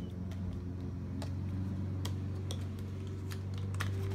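Scattered sharp plastic clicks and ticks as fingers pry a laptop's plastic screen bezel out of its snap clips, over a steady low hum.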